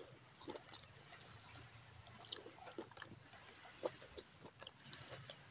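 Close-up wet chewing and sucking on cooked octopus tentacles: irregular soft smacks and clicks of the mouth.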